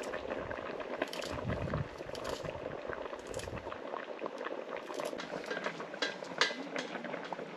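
Pot of slimy otigo sauce simmering on a charcoal stove, with a steady crackly bubbling, and sharp clicks of a knife cutting vegetables in the hand, the loudest about six and a half seconds in.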